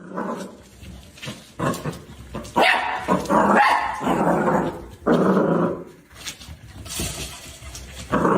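A dog barking several times, in separate barks with short pauses between them.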